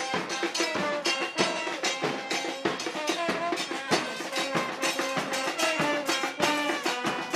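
Football supporters' band playing: brass led by a trombone holding notes over bass drums and a small drum beating a steady rhythm.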